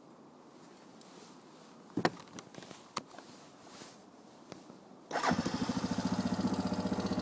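A few sharp clicks over a quiet background, then about five seconds in a Yamaha Grizzly 350 ATV's single-cylinder engine starts and settles into a steady, pulsing idle.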